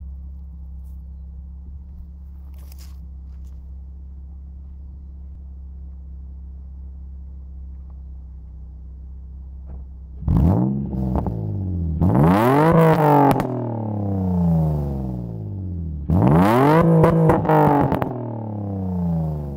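2003 Nissan 350Z's 3.5-litre V6 through a Godspeed true dual exhaust with resonators and no X-pipe, idling steadily for about ten seconds, then revved twice, each rev climbing and falling back to idle. A few sharp pops crack out around the revs.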